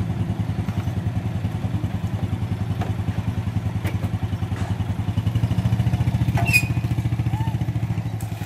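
Small underbone motorcycle's four-stroke single-cylinder engine idling with a steady, even chug, growing a little louder around five to six seconds in as it is ridden off.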